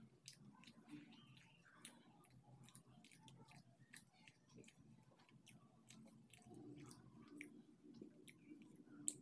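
Faint, close-miked chewing with many soft wet mouth clicks.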